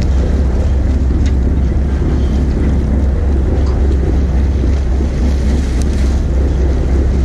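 Steady low rumble of the party boat's engine running at anchor, with wind buffeting the microphone.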